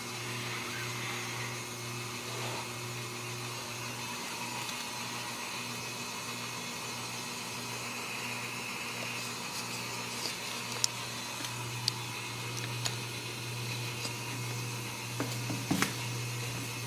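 A steady low machine hum under a faint even hiss, with a few short sharp clicks in the last several seconds.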